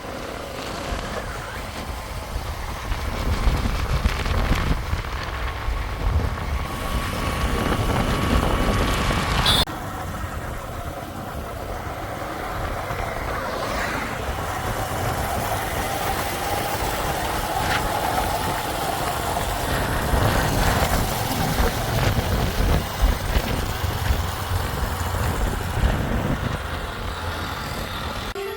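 Diesel engines of heavy earth-moving machinery running steadily under work, a continuous low rumble with a faint held whine above it.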